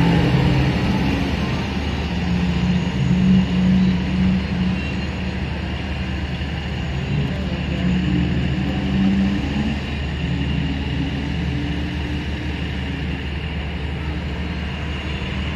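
Engine running steadily: a low rumble with a droning hum that wavers a little in pitch.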